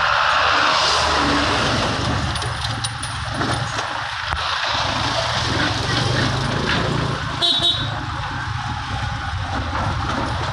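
Motorcycle engine running under way, with wind and road noise from riding past heavy traffic. A short vehicle horn honk sounds about seven seconds in.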